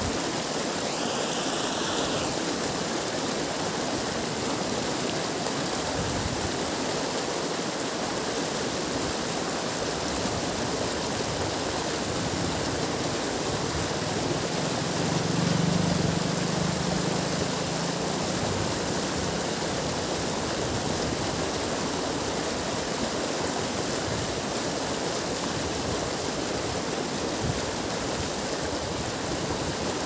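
Churning, foaming river water rushing, a steady even hiss. A faint low hum comes up briefly about halfway through.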